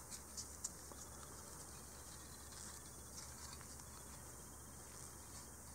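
Faint handling sounds: a few light clicks in the first second, then scattered soft ticks, as gloved hands work the aluminium bolt parts of a replica E-11 blaster kit.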